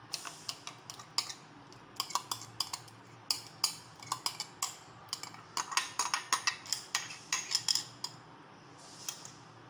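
Steel spoon clinking and scraping against a glass bowl while thick yogurt is scooped and tipped out into a ceramic bowl: a run of quick sharp clinks, thickest between about five and eight seconds in.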